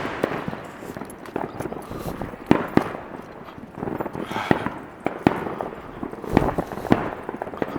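Fireworks and firecrackers going off: a string of sharp bangs at irregular intervals, the loudest about two and a half seconds in and again near the end.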